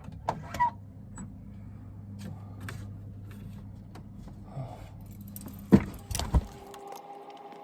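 Vehicle engine running steadily, with light rattling clicks and a few sharp knocks near the end; then the engine sound cuts off abruptly.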